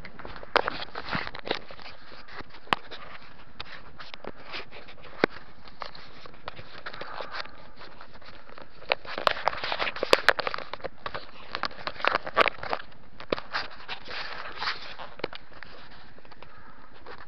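Handling noise of a hand-held camera: irregular sharp clicks, knocks and short rustles of fingers and clothing against the camera and its microphone over a steady hiss, thickest a little past the middle.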